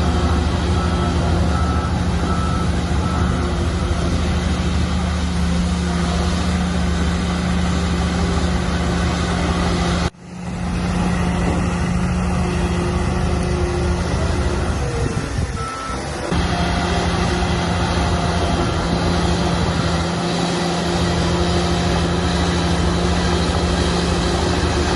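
Shantui crawler bulldozer's diesel engine running steadily under load, with a short sudden dropout about ten seconds in. Faint repeated beeps of a back-up alarm sound during the first few seconds.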